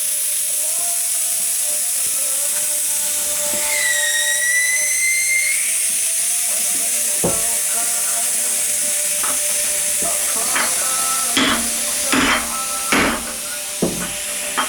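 A steady hiss, with faint music playing underneath, then a handful of sharp hammer blows on steel in the last few seconds as the hammer drives angle iron against a tyre bead to break it off the rim.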